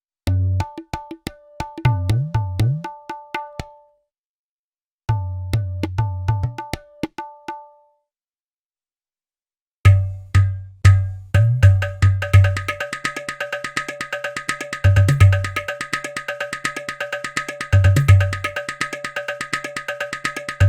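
Sampled Indian hand-drum patterns from the SwarPlug 4 instrument plugin: three separate phrases with short silences between, sharp ringing strokes over deep bass strokes, the bass bending in pitch in the first phrase. The third phrase, starting about halfway through, is a longer, denser groove with a steady high shimmer of fast strokes.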